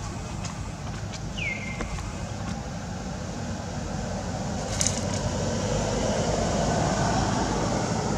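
Outdoor background: a steady low rumble, like distant traffic or wind, that swells a little toward the end, with one short falling chirp about a second and a half in and a sharp click near the middle.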